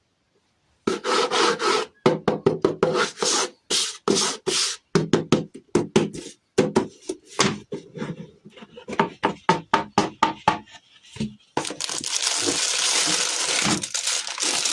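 Quick repeated scraping strokes in short runs with brief pauses. About twelve seconds in it gives way to a continuous crinkling noise.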